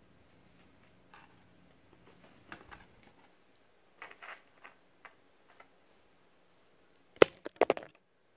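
Handling sounds from building a plastic trash-bag kite: scattered soft rustles and taps, then a loud cluster of sharp clicks and knocks near the end.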